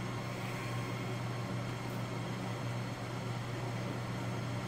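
Steady low hum with a soft hiss of room background noise, unchanging throughout.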